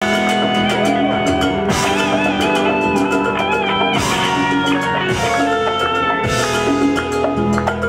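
Live band playing an instrumental intro: an electric guitar melody with wavering, bent notes over a steady bass line and hand percussion.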